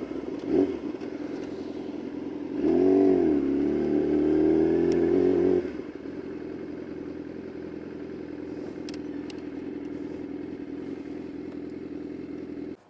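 Yamaha YZF-R6 inline-four motorcycle engine running through a Shadux aftermarket exhaust. About three seconds in the note swells louder, its pitch rising and falling, and holds for a few seconds. Around six seconds in it drops back to a quieter steady note.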